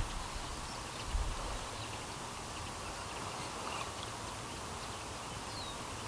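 Quiet riverside ambience: a steady hiss with a few faint, short high bird chirps, and a brief low thump about a second in.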